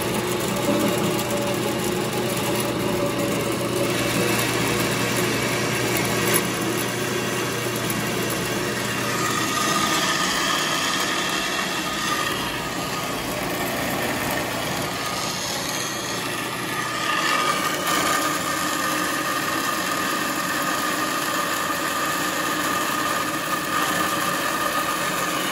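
Ellis bandsaw cutting through 1.5-inch aluminum tubing: a steady sawing sound of motor and blade on metal, its tone shifting a few times as the cut goes on.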